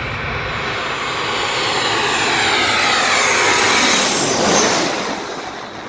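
Twin-engine jet airliner on landing approach passing low overhead. The jet engine noise builds to a peak about four seconds in, with a whine that falls in pitch as the plane goes over, then fades.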